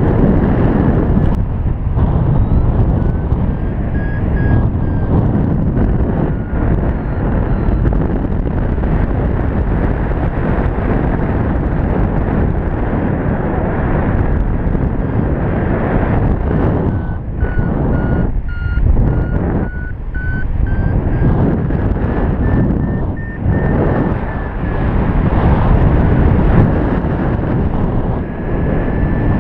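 Wind rushing over the camera microphone in flight, with a paragliding variometer beeping over it; its tone slowly rises and falls in pitch as the climb rate changes.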